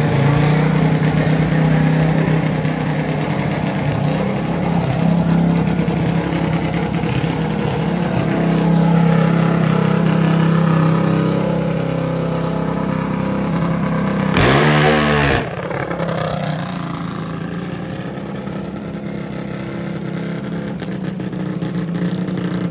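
Junior dragster engine running with a steady drone. A short, loud burst of revving comes about fourteen and a half seconds in, and the engine is quieter after it.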